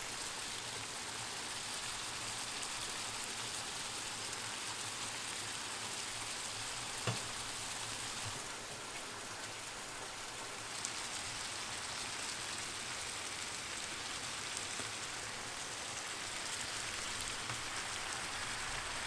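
Vegetables sizzling in a large pan, a steady hiss, with one sharp tap about seven seconds in.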